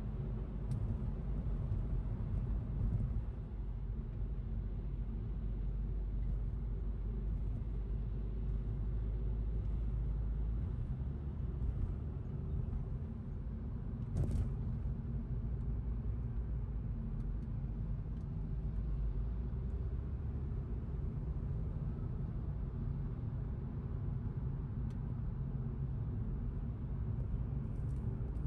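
Steady low rumble of road and tyre noise heard from inside a car cabin while driving at highway speed, with one brief click about halfway through.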